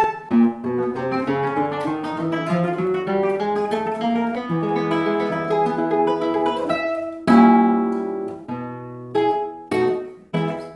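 Acoustic guitar playing: a run of fingerpicked single notes, then from about seven seconds in a few strummed chords that ring out and fade.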